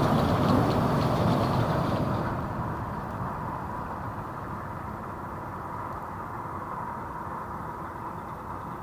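A monorail train passing overhead and dying away over the first few seconds, leaving a quieter steady background noise.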